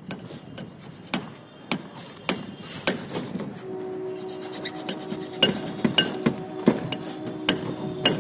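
Sharp metallic clinks, like a hammer striking steel, about ten in all at uneven half-second to one-second intervals, each with a short high ring. A steady pitched hum comes in about halfway through.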